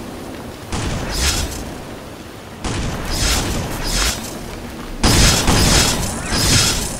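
Film sound effects of blasts striking the ground: three sudden booming hits about two seconds apart, each trailing off in a hiss of scattering debris. The last, about five seconds in, is the loudest.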